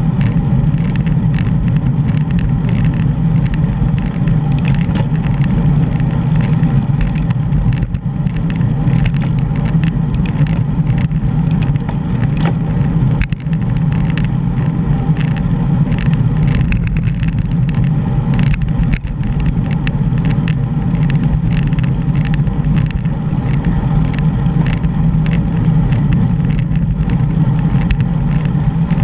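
Wind rushing over a bicycle-mounted GoPro's microphone while riding: a steady, loud low rumble with frequent small clicks and rattles throughout.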